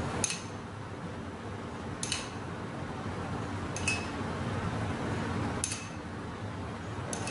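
A utensil clinking lightly against dishware five times, about two seconds apart, each clink with a short high ring, over a steady low hum.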